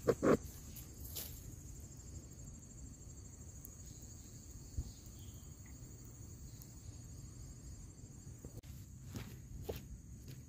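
Steady high-pitched insect chorus. Two short, louder knocks come right at the start, and a few faint clicks near the end.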